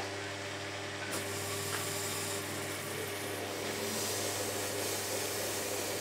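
Shimpo RK10 potter's wheel running with a steady hum. From about a second in, a wet sponge rubs on the spinning wheel head with a steady hiss.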